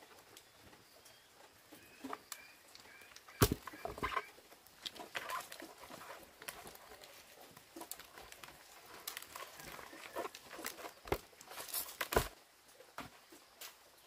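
Irregular knocks and handling noises, with chickens clucking faintly now and then.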